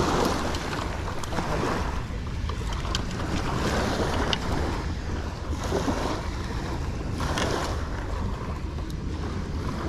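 Wind buffeting the microphone over small waves washing onto a sandy beach, the noise swelling and easing every second or two, with a few light clicks.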